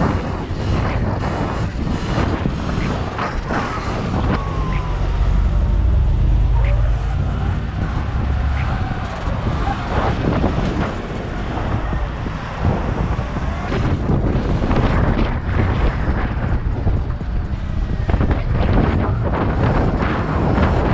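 Wind buffeting the camera's microphone while riding an electric dirt bike through traffic, a continuous low rumble with the noise of surrounding cars.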